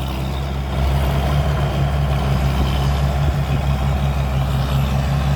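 Cummins diesel engine of a combine harvester running steadily with a low, even drone, slightly louder from about a second in.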